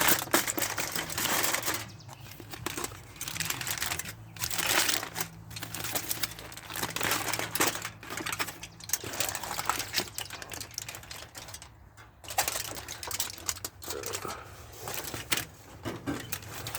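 Wrapping on a smoked brisket crinkling and rustling as it is pulled open, in irregular crackles throughout, over a faint steady low hum.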